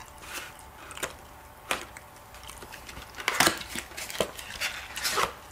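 Kitchen scissors snipping open a kirimochi rice-cake packet: a few sharp, separate snips with light packaging crinkle between them.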